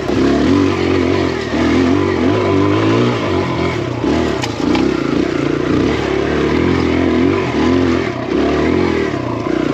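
A Kawasaki KLX140 dirt bike, big-bored to 170cc, with its single-cylinder four-stroke engine revving up and down as the throttle is blipped and rolled over rough single track. There is a single sharp clack about halfway through.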